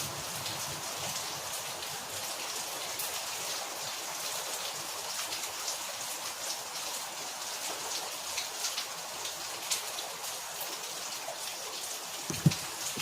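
Rain falling steadily, a continuous hiss dotted with the ticks of single drops striking a surface. Near the end there is one louder low thud.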